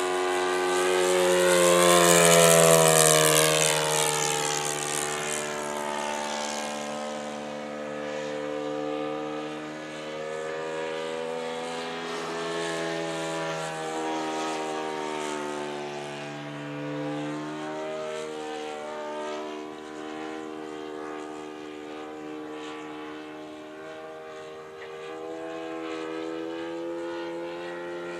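Radio-controlled Hawker Hurricane scale model flying, its motor and propeller making a steady pitched drone. It passes close about two seconds in, where it is loudest, and the pitch drops as it goes by. After that the drone circles farther off, its pitch rising and falling as the plane comes and goes.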